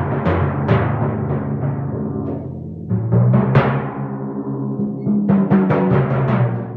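Timpani played with mallets: a run of quick strokes on the copper drums, each note ringing on in a low pitched boom. The strokes thin out about two and a half seconds in, return with a heavy stroke, and end in a rapid flurry of strikes near the end.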